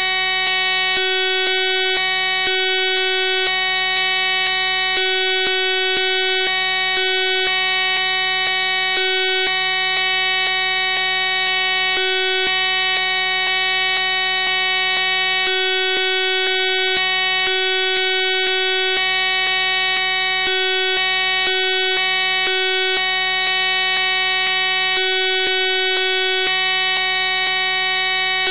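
Loud, steady electronic buzz made of many held tones, with a lower hum that cuts in and out irregularly.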